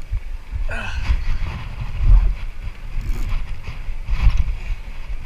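Wind buffeting the microphone in uneven gusts aboard a small boat, over a low rumble.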